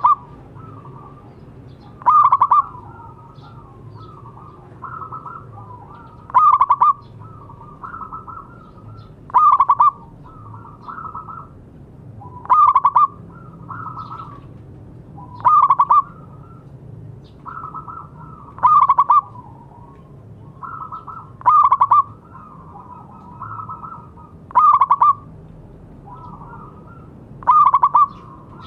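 Zebra doves (perkutut) cooing: a loud trilled coo about every three seconds, nine times, with softer cooing in between.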